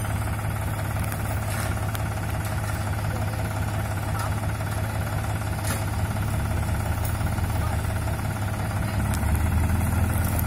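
New Holland TT4.55 tractor's diesel engine idling steadily, getting a little louder near the end.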